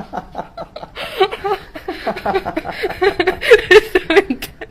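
A person laughing in a rapid series of short bursts, an emotional reaction to a chiropractic neck adjustment.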